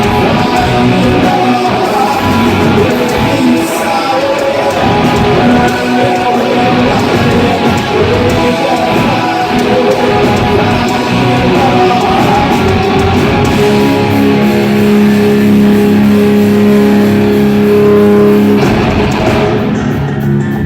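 Live hard-rock band playing loudly: distorted electric guitar riffing over a drum kit. About two-thirds of the way through, the guitar holds a chord for several seconds before the riff resumes.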